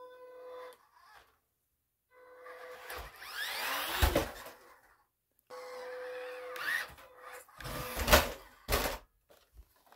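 Brushed electric motor of a 1/12-scale MN78 RC crawler whining, its pitch rising as the truck speeds up. There is a hard knock about four seconds in, and near the end a quick run of loud knocks as the plastic truck tumbles onto its roof.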